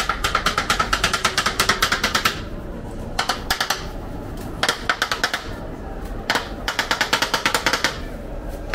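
Metal spatulas chopping meat on a steel flat-top griddle, a fast clatter of strikes in bursts: one of about two seconds at the start, then several shorter runs with brief pauses between.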